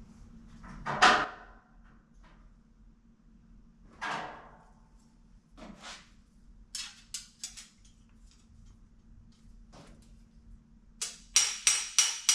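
Hammer striking a sheet-steel flange edge to stretch it: a few scattered clatters and light taps, then near the end a quick run of ringing metal blows, about five a second.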